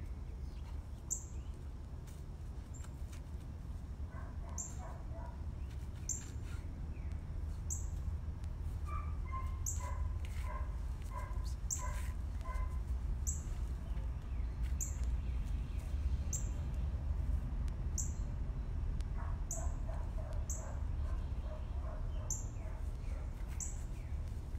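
Soft high animal squeaks in short runs, about twice a second, over a low steady rumble. A faint high tick comes roughly once a second.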